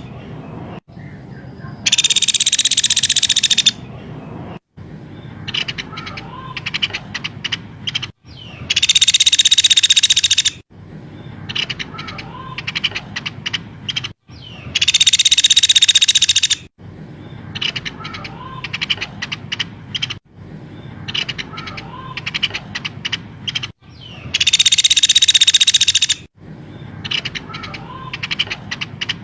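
Recorded songbird calls from a bird-tutoring track. Long bursts of dense, rapid high-pitched chatter, about four of them, each lasting about two seconds, alternate with runs of quick clicking chirps and short whistles, the pattern repeating every few seconds.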